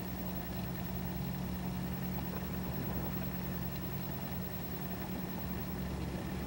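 A steady low machine hum made of a few constant low tones over a faint even hiss, unchanging throughout.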